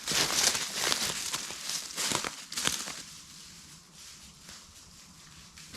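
Footsteps crunching on the woodland floor, irregular steps for about three seconds, then quieter with only a few faint crunches.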